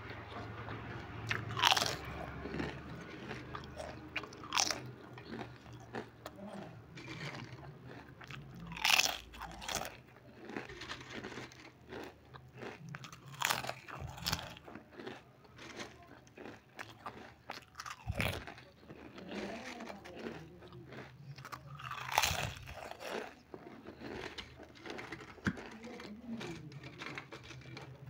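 A person biting and chewing crispy potato chips: a loud crunch with each bite, about every four to five seconds, and softer crackling chews between them.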